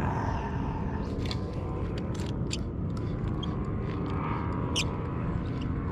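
A steady low rumble, with scattered sharp clicks and a faint whir from a spinning reel as the rod is cast and the line retrieved.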